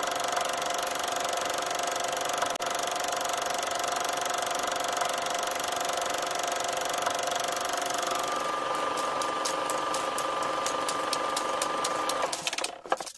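A small machine running with a steady whirr and a held hum. About two-thirds of the way through the pitch of the hum shifts and a rapid, regular clicking joins it, about five clicks a second, before the sound cuts off just at the end.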